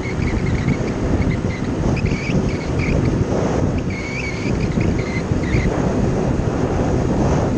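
Wind buffeting a chest-mounted action camera's microphone on a Kymco Agility City 50cc scooter at road speed, with the scooter's engine running beneath. A thin, wavering high tone comes and goes over the rush.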